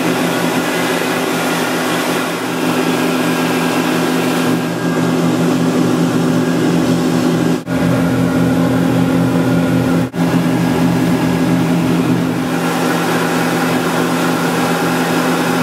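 Suzuki DF300 V6 four-stroke outboard running steadily at speed, with a rushing hiss of wake and spray. The sound drops out briefly twice, about eight and ten seconds in.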